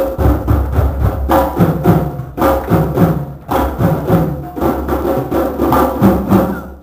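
A drum circle ensemble playing hand drums together in a dense, driving rhythm of several strokes a second, breaking off at the very end.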